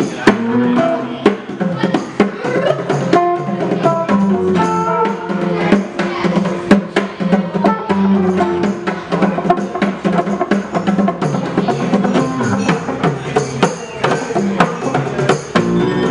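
Small live acoustic band playing: guitars strummed over a hand drum beaten in a steady rhythm, with a melody line on top.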